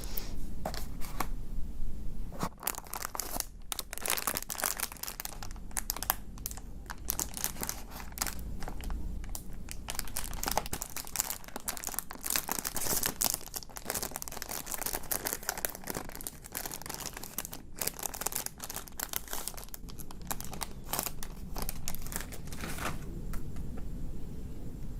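Plastic ice-cream bar wrappers being torn open and crinkled up close, in dense irregular rustles.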